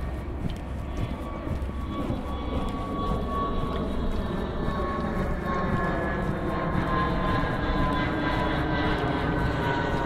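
Jet airliner flying low overhead. Its engine rumble grows steadily louder, and a whine in it slowly falls in pitch.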